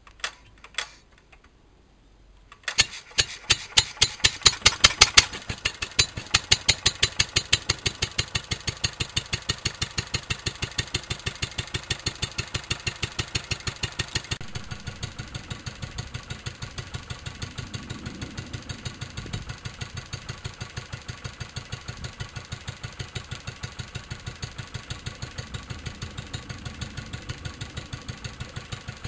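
Wolseley WD8 single-cylinder side-valve petrol stationary engine being hand-started from the flywheel: two clicks as it is swung, then it fires about three seconds in and runs with an even, rapid beat of firing strokes. The beats are loudest in the first few seconds of running and settle to a steady run.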